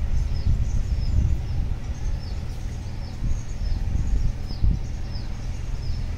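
Small birds chirping over and over in short, high, downward-sliding notes, over a steady low rumble.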